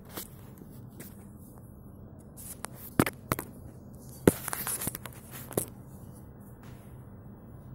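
Handling noise from a phone being moved and set in place: a few sharp knocks, about three seconds in and again a little after four, with brief rustling between them, over a faint steady low hum.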